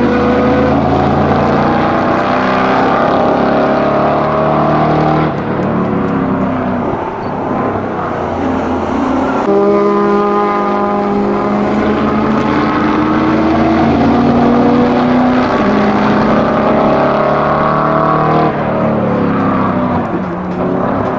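The 572-cubic-inch (9.4-litre) V8 of a 1970 Dodge Challenger T/A race car at full throttle, its pitch climbing steadily as it accelerates. Twice it lifts off sharply and the revs fall away, once about five seconds in and again near the end.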